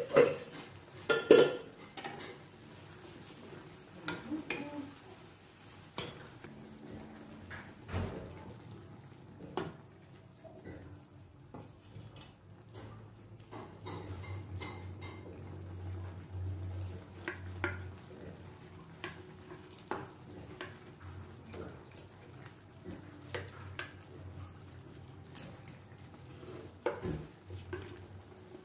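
Wooden spatula knocking and scraping against a serving dish and a metal pan as fried fish are moved into the pan, in scattered clinks and knocks that are loudest at the start and near the end. A faint sizzle of sauce simmering in the pan runs underneath.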